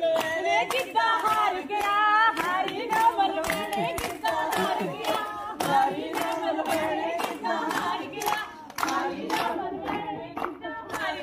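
Group of women singing a Punjabi folk song in unison for gidda, with hand-clapping keeping a steady, even beat.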